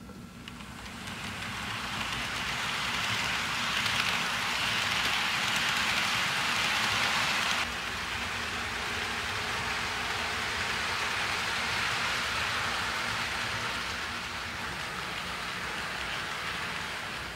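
HO-scale model freight train rolling along sectional track on a wooden floor: a steady rattling hiss of many small wheels on rail, with the locomotive motors. It swells over the first couple of seconds, drops suddenly in level about eight seconds in, and fades near the end.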